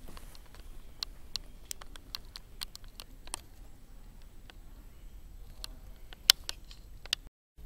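Scattered light clicks and taps, irregular and a few each second, over a faint low hum; the sound cuts out briefly near the end.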